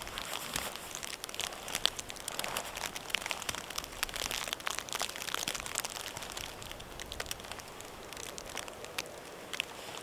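Waterproof tarp fabric and rain jacket rustling and crinkling as the tarp is handled and adjusted, with many small sharp ticks scattered through it. The crinkling is busiest in the middle.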